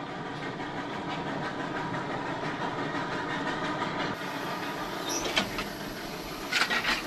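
Small home-built steam locomotive and its wagons running on narrow-gauge garden railway track, a steady rumble of wheels on rails. A few sharp clanks near the end.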